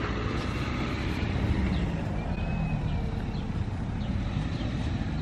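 Steady low outdoor rumble of background noise, with a few faint brief high chirps about two seconds in.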